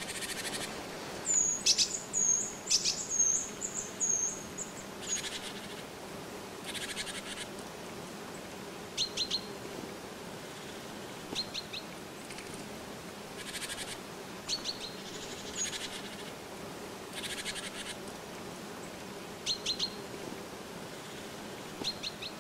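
Small forest birds calling: a run of high, thin whistled notes in the first few seconds, then short clusters of quick high ticks every two to three seconds, with a few brief buzzy trills in between.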